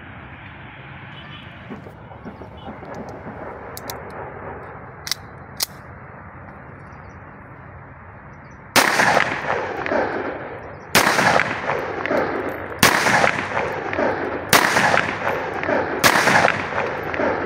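Locally made copy of a Tokarev TT pistol in .30 bore (7.62×25 mm) fired five times, single shots about two seconds apart, each followed by a ringing tail. Two short clicks about five seconds in, before the firing starts.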